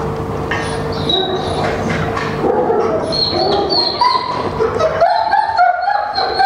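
A dog barking and yelping over and over in short high calls, more often and louder from about halfway in.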